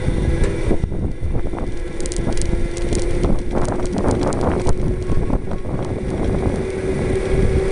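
A 24V 450W electric cart motor running under load, its whine holding a steady pitch that creeps slowly upward, over rumble of small tyres on asphalt and wind buffeting the microphone.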